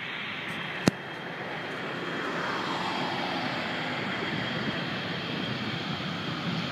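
Jet airliner engines heard across the airfield, a steady rushing noise whose pitch slowly falls over a few seconds. There is a single sharp click about a second in.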